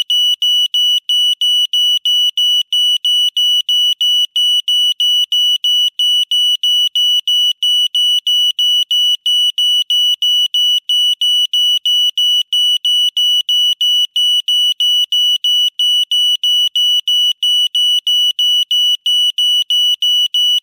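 Older-model Yuanhe (元和) residential fire alarm sounding: a shrill, high-pitched beep repeating steadily, about two and a half beeps a second.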